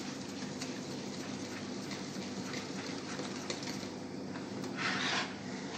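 Cake batter being mixed by hand in a bowl, with soft scraping and small knocks of the utensil against the bowl. A louder scrape comes about five seconds in.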